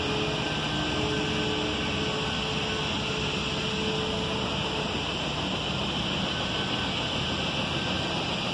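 Steady hissing background noise, with a faint engine hum that fades out about halfway through.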